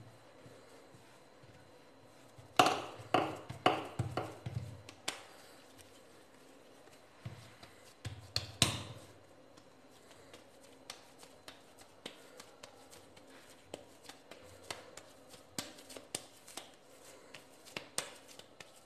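Hands kneading and shaping a soft ball of yeasted dough, pressing and patting it on a marble rolling board. Soft thumps come in a cluster a few seconds in and again at about eight seconds, followed by lighter ticks.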